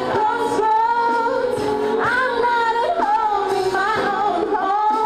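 A woman singing a slow song into a handheld microphone, holding long notes that slide up and down in pitch between short breaths.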